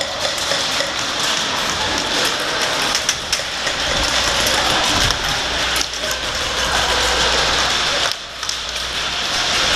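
Steady rustling and clattering of a player's gear and head-mounted camera while moving quickly, with a few scattered sharp clicks and knocks.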